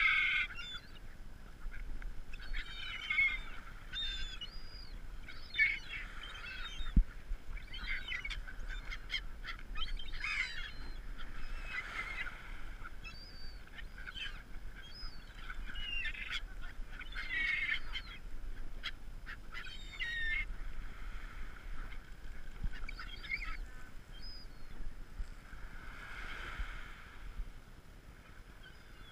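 A flock of gulls calling, many short harsh cries overlapping and repeating. A single sharp knock about seven seconds in.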